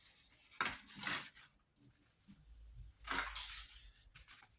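Several brief clinks and rustles of small objects being handled and set down on a work table, the loudest a little after three seconds in.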